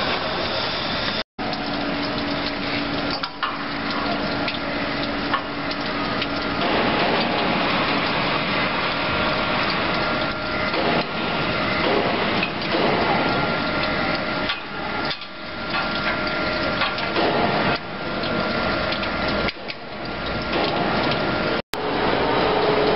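LW25-80 chain link fence machine running, a dense steady metallic clatter of its weaving mechanism with a faint steady hum on top. The noise breaks off for an instant twice.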